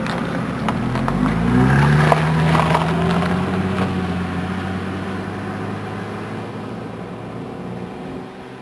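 A motor engine speeds up, rising in pitch, then runs steadily and slowly fades away. A few sharp cracks or snaps come while it rises.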